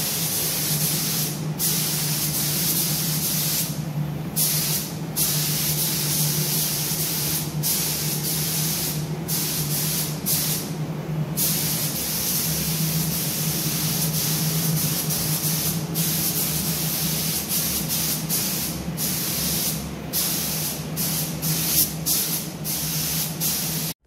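Compressed-air gravity-feed spray gun hissing as it sprays paint, cutting out briefly a dozen or so times as the trigger is let off between passes, over a steady low hum.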